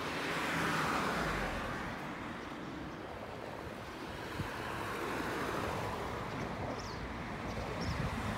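Street traffic noise: a car or truck going by about a second in, then a steady hum of road traffic.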